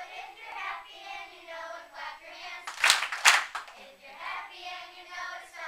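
Children's choir singing in held notes that step up and down. A short loud burst of noise breaks in a little under three seconds in.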